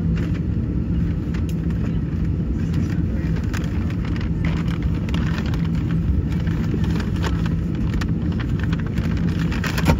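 Steady low engine rumble on an airport apron, from aircraft and ground vehicles, with a constant low hum and a few faint clicks.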